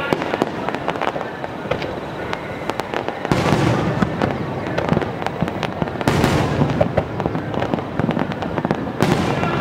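Fireworks display: a rapid string of sharp bangs and crackles, with heavier bursts of booms about three seconds in, about six seconds in, and near the end.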